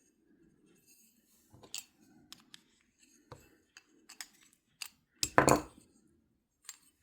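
Small metal parts of an Abumatic 150 spincast reel clicking and clinking as they are handled and set down during disassembly, with one louder knock about five seconds in.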